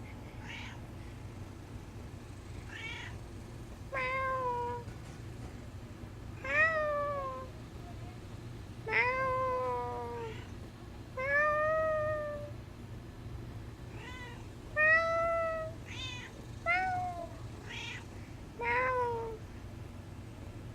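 Domestic cat meowing repeatedly: about a dozen short meows, one every second or two, some rising and falling in pitch, a few louder than the rest.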